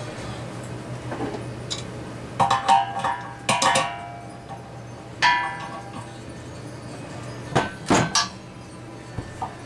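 Threaded metal pipe fittings clinking and knocking together as they are handled and screwed up by hand, in several short clusters of sharp, ringing metal clinks about two and a half, three and a half, five and eight seconds in.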